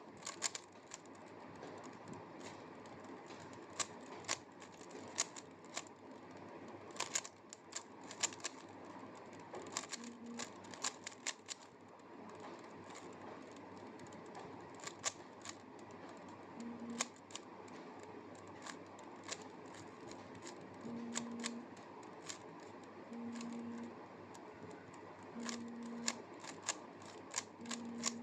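Rubik's Cube being turned by hand: irregular plastic clicks and clacks as the layers are twisted, coming in quick runs with short pauses between them.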